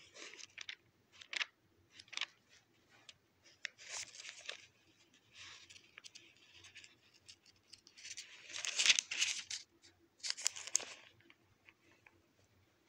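Thin Bible pages being turned by hand: a series of short paper rustles and flicks, with a longer, louder rustle about nine seconds in.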